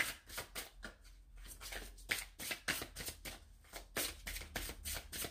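A deck of fortune-telling cards being shuffled by hand: a quick, irregular run of soft card flicks and slaps.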